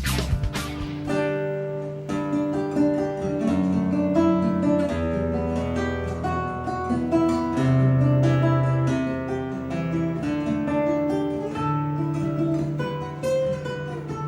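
Solo acoustic guitar playing an instrumental passage: plucked melody notes over held bass notes.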